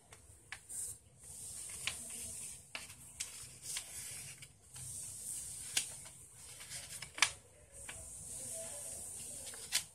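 A sheet of paper being folded by hand: stretches of hissing rustle as it slides and rubs, broken by sharp crinkles and crackles as the folds are pressed, the sharpest about seven seconds in.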